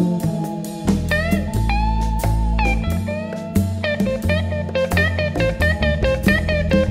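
Live band playing an instrumental break: a semi-hollow electric guitar plays a lead solo with string bends, over bass guitar and drums.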